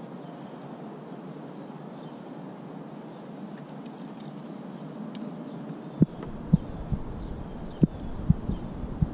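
A steady low hiss of open-air ambience with a few faint clicks. About six seconds in, a run of irregular dull thumps and knocks begins, roughly two a second.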